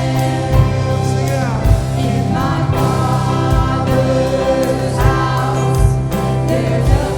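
Church worship band and singers performing a worship song: held sung notes over a steady bass, with a drum hit about once a second.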